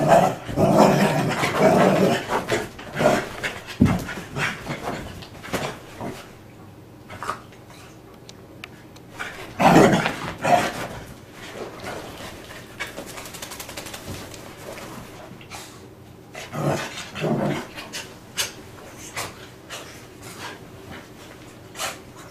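Lhasa-Poo dog panting and scrambling about on a bed's comforter, rustling and scuffing the bedding. Louder bursts come in the first few seconds, about ten seconds in and about seventeen seconds in.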